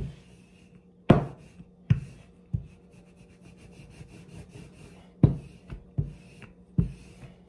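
Wooden rolling pin rolling out stiff cracker dough on a floured countertop: a soft rolling rub with dull knocks as the pin comes down or turns, about six in two groups of three. A faint steady hum runs underneath.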